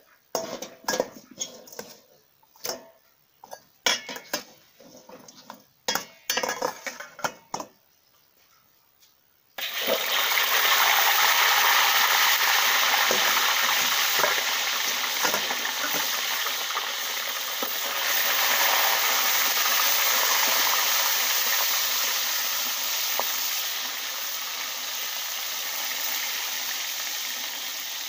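Scattered clicks and knocks, then about ten seconds in a whole sea bass goes into hot oil in a wok. The oil starts sizzling loudly and keeps on steadily, easing off slowly.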